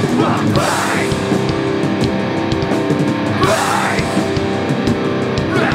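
Hardcore band playing live and loud: electric guitars, bass guitar and drums, with a strong accent about every three seconds.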